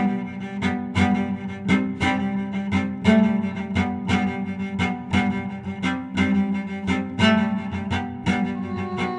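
Cello playing a rhythmic tune with sharp, evenly spaced bow strokes, about three a second.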